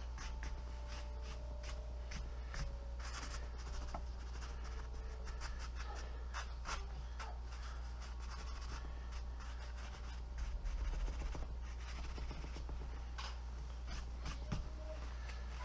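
Fingers and a cloth rag rubbing antique wax into the surface of paper: irregular dry scratchy strokes, with a low steady hum underneath.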